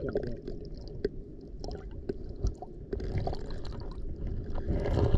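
Shallow seawater sloshing and gurgling around an underwater camera, with scattered sharp clicks and crackles and a louder surge near the end.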